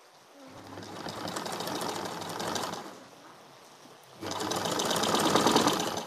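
Black Singer-type domestic sewing machine stitching through a thick, foam-padded bedcover, its needle running in a fast, even rhythm. It runs twice: it speeds up about half a second in and stops just before the three-second mark, then starts again, louder, about four seconds in.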